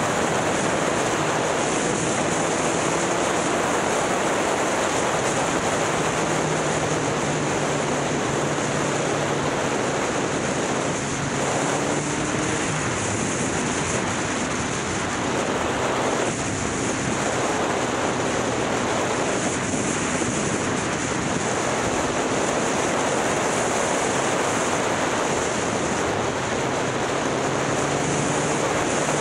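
Wind rushing over the microphone of a moving motorcycle, with the engine's note faintly beneath it, its pitch stepping up and down a few times with speed.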